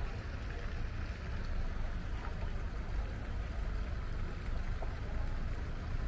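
Steady outdoor background noise with a low, uneven rumble underneath.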